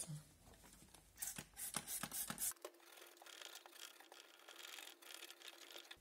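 Faint scrubbing strokes of a cleaning cloth wiping grease off the metal wall inside a microwave oven's cavity. A few brief strokes come in the first half, then only a faint hiss.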